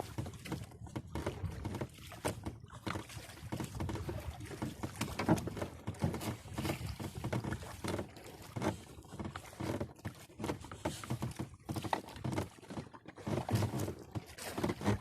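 Irregular splashing and knocking around a small fishing boat as the fishing net is paid out into the water.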